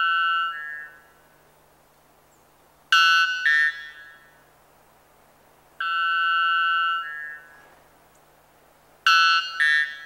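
White bellbird calling: strong notes that alternate a long held note, stepping up in pitch at its end, with a short two-part note, about every three seconds, four calls in all.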